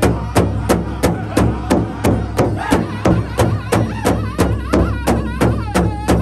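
Powwow drum group: several men striking a large hide-headed powwow drum in unison with beaters, a steady beat of about three strikes a second, with high, wavering group singing over the drum.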